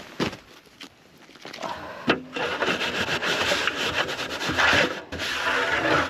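Rough scraping and rubbing, with a few knocks at first, then steady scraping from about two seconds in that breaks off briefly near the five-second mark.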